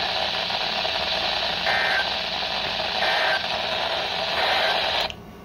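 Radio static: a steady hiss from a radio receiver with no voice on it, with two short faint tones about a second apart near the middle. The hiss cuts out suddenly just before the end.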